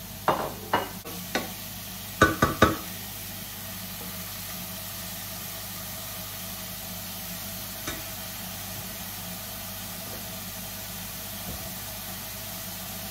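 Champignon mushrooms sizzling in a pan, with a utensil knocking sharply against the pan about six times in the first three seconds as they are stirred. A steady hum from the kitchen range hood fan runs underneath.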